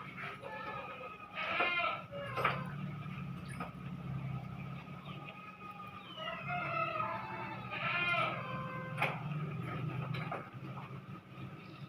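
Animal calls: two wavering, bleat-like cries, one about a second and a half in and one about eight seconds in, with shorter chirps between them, over a steady low hum.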